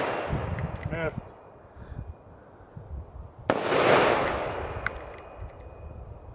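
A single AR-15 rifle shot about three and a half seconds in, its report dying away in a long rolling echo. The echo of the previous shot is still fading at the start, and a few light ticks follow the shot.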